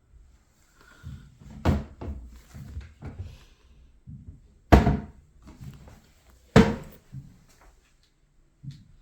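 A series of soft thuds, with three sharp, louder knocks about 1.7, 4.7 and 6.6 seconds in, in a small room with some echo.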